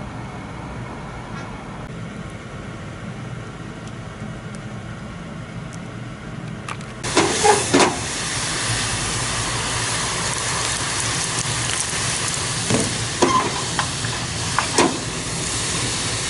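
Hot oil sizzling and crackling in an aluminium saucepan on a gas stove. The hiss starts suddenly about halfway through, with the loudest pops at its start and a few more near the end, after a low steady hum.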